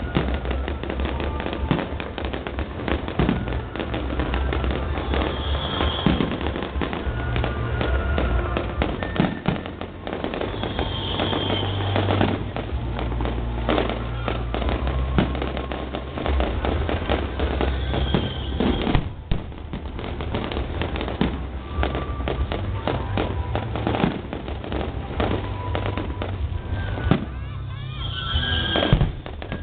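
Fireworks display: a dense run of bangs and crackling, with a few brief hissing streaks, over loud music with a steady bass line and crowd voices.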